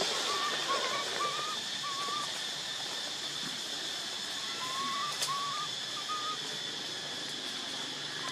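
Forest ambience: a steady high insect drone, with a series of short, wavering whistled calls, a handful in the first couple of seconds and a few more about five seconds in. A single sharp click about five seconds in.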